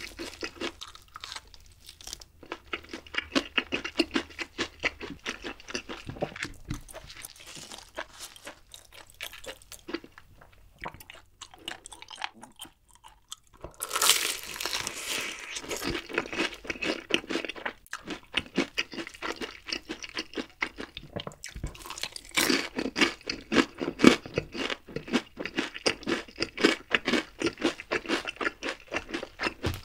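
Close-miked crunching and chewing of crispy honey-glazed fried chicken, with a loud crunchy bite about halfway through and another a little later.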